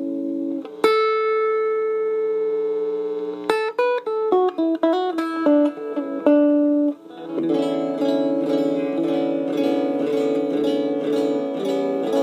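Guitar played through a Digitech Main Squeeze compressor/sustainer pedal, switched on. A chord rings out, then a single note is held for about two and a half seconds with long, even sustain. A quick run of single notes follows, and from about halfway there are fast, evenly repeated chord strokes, about four a second.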